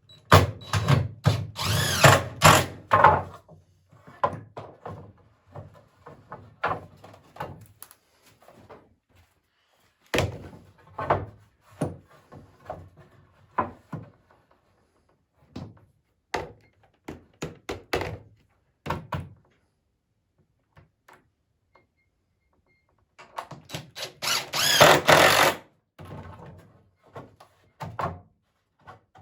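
Poplar swing slats and parts being handled and knocked into place, in irregular thunks and clatter with three louder bursts.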